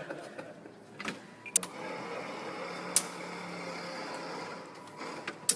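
Small electric motor of a remote-control model ship whirring steadily for about three seconds, with a few sharp clicks around it.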